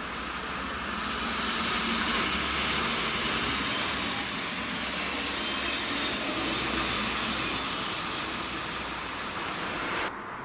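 Red DB regional multiple unit passing over the yard tracks: a steady rolling rail noise with a high hiss over it, loudest about two to three seconds in and easing slowly after. It cuts off suddenly near the end.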